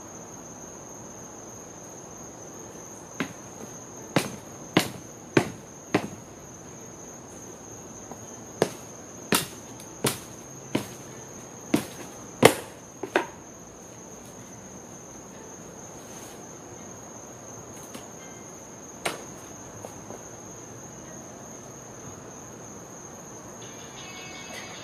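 Hammer blows on a wooden pallet being knocked apart: a run of about five sharp knocks a little over half a second apart, a pause, a run of about seven more, then one lone knock later. Crickets trill steadily at a high pitch in the background.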